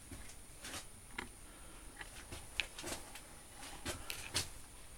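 A few faint, scattered clicks and light taps over a quiet background.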